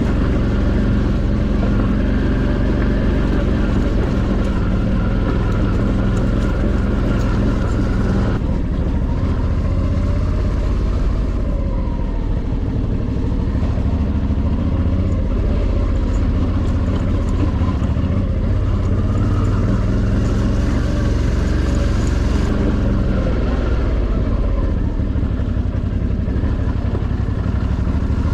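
Suzuki V-Strom DL650's V-twin engine running steadily while riding, a loud continuous engine note.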